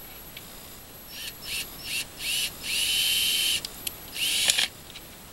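Cordless drill driving screws into the coop's wooden egg door. The motor whines up in several short pulls of the trigger and one longer steady run of about a second, with a sharp click near the end.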